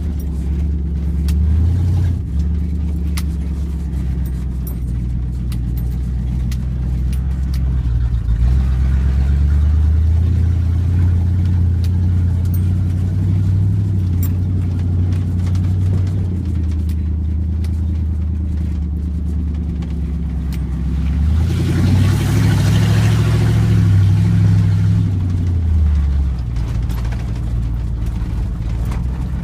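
Chevy pickup truck's engine heard from inside the cab, running as the truck drives slowly over grass and dirt tracks. The engine pitch rises about eight seconds in, and again about twenty-two seconds in with a louder rush of noise, then drops back a few seconds later.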